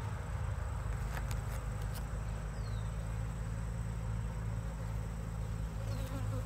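Honeybees buzzing in a steady, low drone around nucleus hives, with a couple of faint clicks about a second in.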